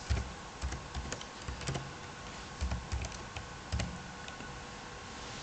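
Computer keyboard keys being typed in an irregular run of light clicks as a short word is entered.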